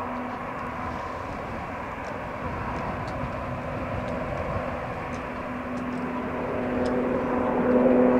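Super Puma twin-turbine helicopter running, a steady engine hum with several held tones that grows louder near the end.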